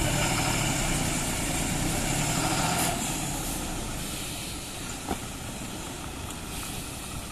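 Heavily loaded lorry's diesel engine running under load as the truck creeps forward, easing off about three seconds in. A single short knock about five seconds in.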